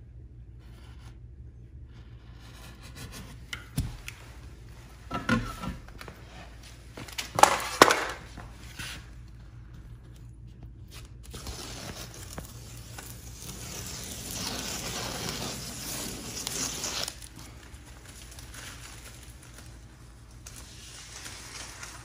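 Cork wallpaper being handled and worked onto a wall: a few bumps and knocks, then about five seconds of scraping and rustling.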